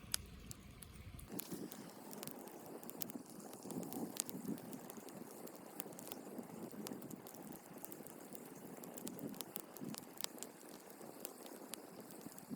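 Small wood fire crackling with irregular sharp pops, under a soft hiss of water from a leaking birch-bark container sitting on it.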